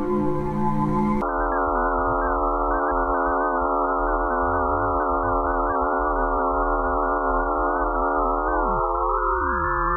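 Eerie electronic space sound made of many wavering pure tones stacked over one steady hum, which the uploader presents as Pluto's magnetic field and radio waves. About a second in, a denser hissing drone cuts off abruptly; near the end, some tones glide upward while the lower ones slide down.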